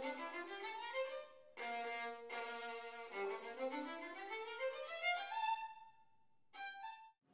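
Solo violin playing rising scale-like runs that climb to a held high note about five seconds in. After a short pause it plays a brief phrase.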